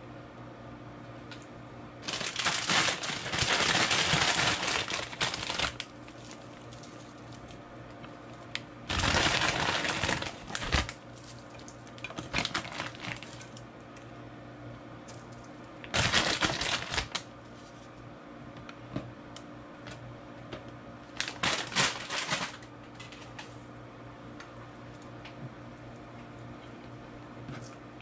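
Four bursts of crinkling and crackling as crisp pork cracklings and their packaging are handled, the first and longest lasting about four seconds. A steady low hum runs underneath.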